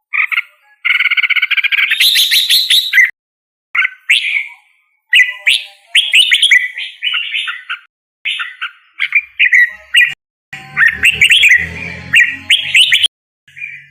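A string of homemade, made-up Red-whiskered Bulbul call effects: short bouts of chirps and warbling trills. Each bout cuts off abruptly into silence before the next begins.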